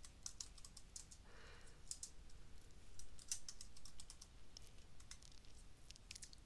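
Computer keyboard typing: faint key clicks at an uneven pace, with a quicker run of keystrokes about three seconds in.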